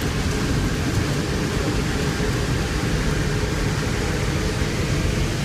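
Boeing C-17 Globemaster rolling out on the runway after touchdown, heard from inside the flight deck: a steady low rumble with hiss from its engines and airflow, unchanging throughout.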